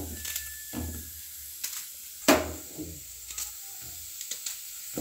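Cut onion pieces being dropped into a metal kadai, a string of knocks on the pan, the loudest a little past halfway, over a steady hiss.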